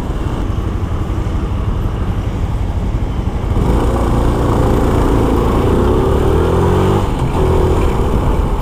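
Honda Supra X 125's single-cylinder four-stroke engine running, a steady low rumble that grows louder from about three and a half seconds in, its pitch rising and falling slightly as the revs change.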